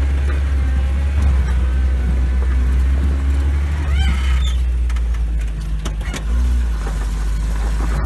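Soviet UAZ off-roader's engine pulling steadily in a low drone as it climbs a rocky dirt track, heard from inside the cab. A short rising squeak comes about halfway, and a few knocks and rattles follow a second or two later as the vehicle goes over the rough ground.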